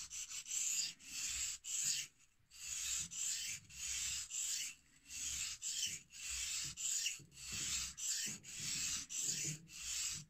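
Carving knife blade scraping back and forth on a wet 1000/3000 combination whetstone in push-pull sharpening strokes, about one stroke a second with short pauses, stopping suddenly at the end. This is the burr-raising stage on the second side of the blade.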